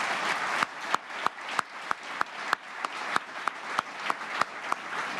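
Audience applauding, a dense patter of many hands, with one nearby clapper's sharp claps standing out at about three a second.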